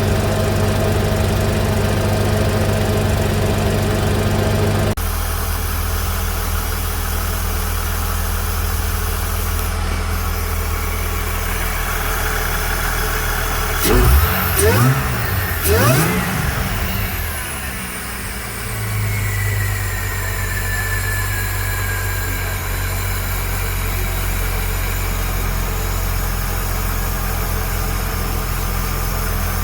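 Car engine idling steadily, with two quick revs about fourteen and sixteen seconds in before it settles back to idle.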